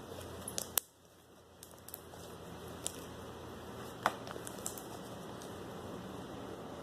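Hand-worked slime giving a few sharp little clicks and pops, the loudest a little under a second in, over a steady background hiss.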